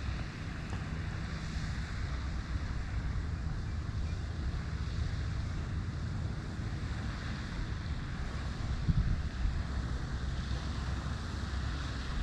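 Wind buffeting the microphone outdoors: a steady, fluctuating low rumble with hiss, with a few stronger gusts near the end.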